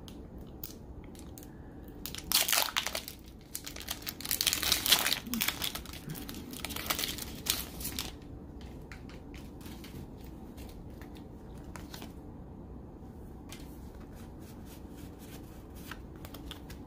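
A Pokémon booster pack's foil wrapper being crinkled and torn open in a few loud bursts over several seconds, followed by faint soft clicks as the cards are handled.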